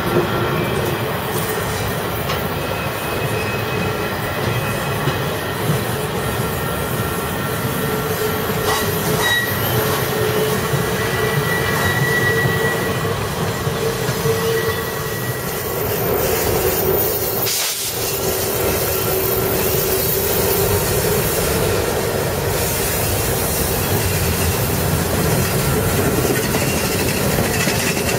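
Railroad cars rolling past: steel wheels rumbling on the rails, with thin steady wheel squeal tones coming and going over the top. About two-thirds of the way through there is a brief sharp break in the sound.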